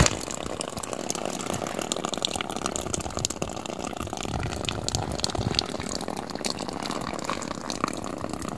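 Water running and spraying steadily from a leaking irrigation hose, with scattered crackles of branches and footsteps in the undergrowth.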